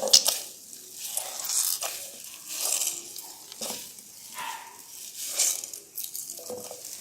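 Soaked soya chunks (meal maker) being squeezed by hand, water squelching out and splashing back into the bowl in a series of short, irregular bursts.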